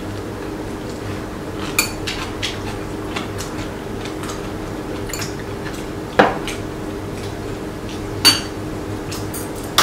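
Metal spoon and chopsticks clinking against ceramic bowls and dishes while eating: a few scattered clinks, the loudest about six seconds in and another about eight seconds in.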